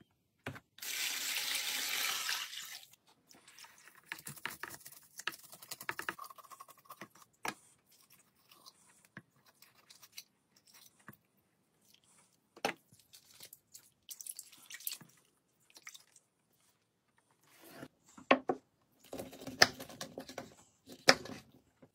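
A loud rush of water for about two seconds at the start, then a knife scraping scales off a pike in a basin of ice water, with small splashes and clicks. Near the end, sharp knocks of a knife cutting the fish on a wooden board.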